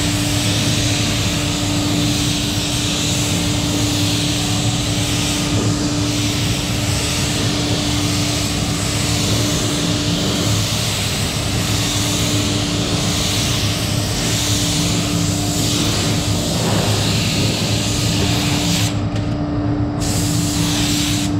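Compressed-air spray gun hissing steadily as it lays the final, slightly heavier coat of Lechler Green Tech primer-filler on a car fender, with a steady low hum underneath. The hiss cuts out briefly near the end.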